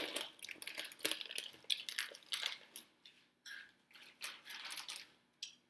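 Irregular short rustles, clicks and crunches of a snack mix being handled and eaten.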